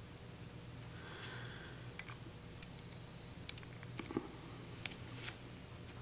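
Light metallic clicks of a short hook pick entering the keyway of a pin-tumbler Brooks padlock and touching the pins while a tension wrench holds the plug. The clicks are faint and come singly, about six of them in the latter two-thirds.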